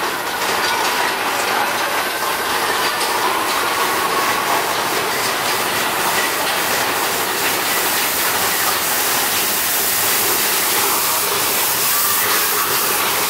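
Big Thunder Mountain Railroad mine-train roller coaster cars rumbling and clattering along the track, with a steady run of clicks.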